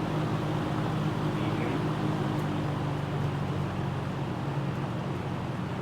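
1973 Kmart Lakewood P-23 box fan running on high: a steady motor hum under the rush of air from the blade.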